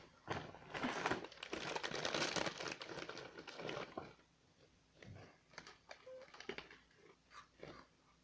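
Snack bag crinkling and rustling as it is handled, dense for about four seconds, then only a few faint crackles and clicks.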